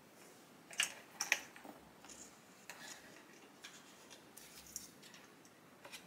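Plastic clicks and scratching as a wiring harness is handled and pressed into place in a coffee machine's plastic chassis. Two sharp clicks come about a second in, then lighter ticks and scratchy rustling.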